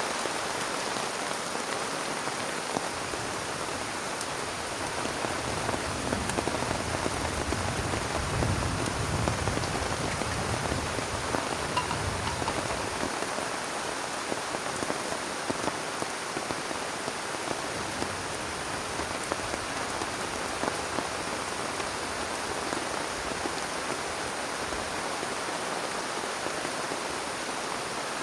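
Heavy rain pouring steadily, with scattered louder drop hits. A low rumble swells and fades in the first half.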